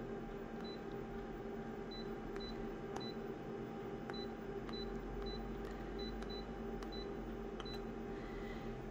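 Photocopier touchscreen beeping once for each tap as settings are entered, about a dozen short high beeps at one pitch, irregularly spaced, over a steady low hum.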